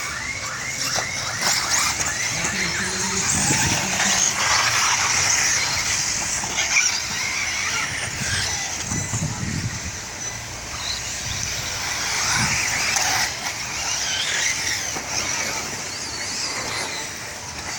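Several electric 4WD off-road RC cars racing together, their motors whining up and down in pitch as they accelerate and brake, over the noise of tyres on the track.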